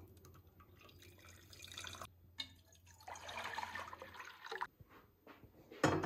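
Water being poured into a drinking glass in two spells, a short one and then a longer one about three seconds in, with a sharp knock near the end.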